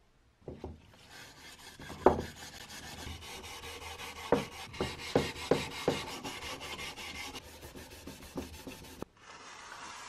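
Maroon abrasive pad scrubbed rapidly back and forth over the wooden box of an antique coffee grinder, a dense scratchy rubbing with several sharp knocks of the wood along the way. It cuts off about nine seconds in, leaving a faint hiss.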